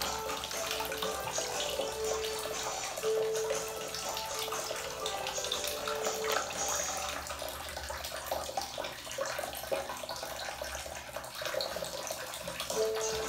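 Water splashing and sloshing in a shallow plastic tub as an otter swims and paddles about in it. A background music track with held notes plays over it.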